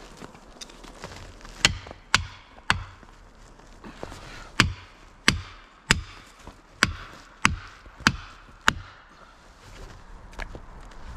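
Felling wedges being pounded into a tree's cut: about ten sharp blows in three quick runs, a strike roughly every half-second to two-thirds of a second, then one faint knock near the end. The wedges are being double-stacked to lift a tree that will not go over.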